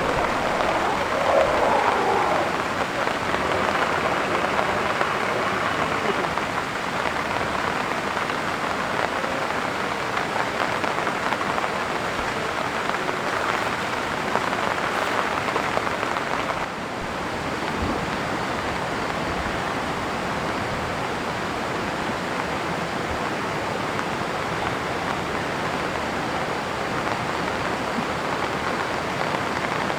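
Heavy rain falling steadily as a dense, even patter, dropping slightly in loudness about 17 seconds in.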